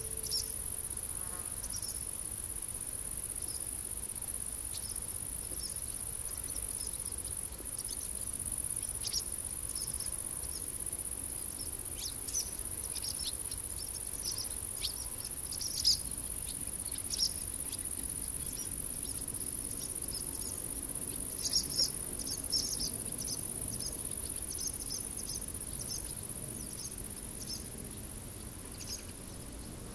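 Grassland insects stridulating in a steady, high-pitched drone, with short high chirps scattered through it and thickest about two-thirds of the way in.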